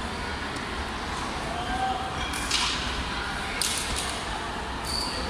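Badminton rackets striking the shuttlecock in a rally: three sharp hits about a second apart in the second half, over a background hum of the hall.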